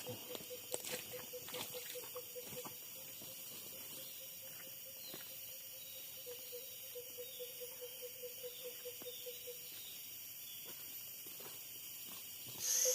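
Forest insects buzzing steadily at a high pitch, with a rapid series of short, evenly spaced low notes from a calling animal repeating for a few seconds. A few sharp clicks come in the first couple of seconds, and a much louder insect buzz starts near the end.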